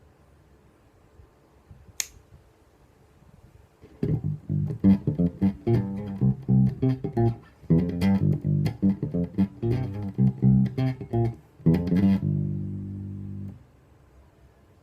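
Aria Pro II TSB-650 electric bass guitar played solo: after a single sharp click, a run of plucked notes starts about four seconds in and ends on a held note that is cut off suddenly near the end.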